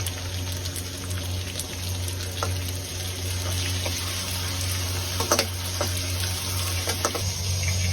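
Crucian carp frying in hot oil in a wok: a steady sizzle, with a couple of short utensil knocks about five and seven seconds in.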